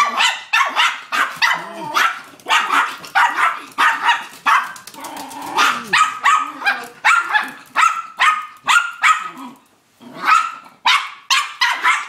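A small dog barking over and over, about two to three barks a second, with a short pause about ten seconds in.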